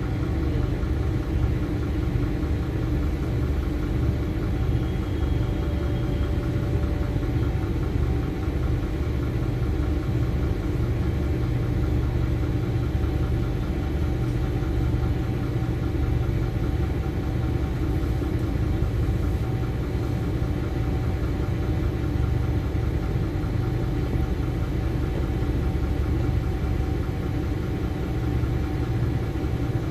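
LiAZ-5292.21 city bus's diesel engine running steadily, a low even hum heard from inside the passenger cabin.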